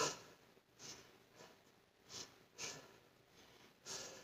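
A woman's faint, short breaths, about five in all, as she holds an exercise position lying face down.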